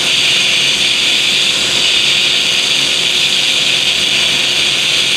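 Scratch-start TIG welding arc burning steadily with an even hiss on a fusion pass with no filler wire added. The amperage is set a little too low: the heat is running cold.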